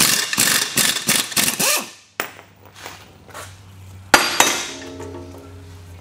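Pneumatic air hammer chattering against a control arm bushing for about two seconds, then stopping. About two seconds later come two sharp metal clanks, a quarter second apart, and the second leaves a ringing tone.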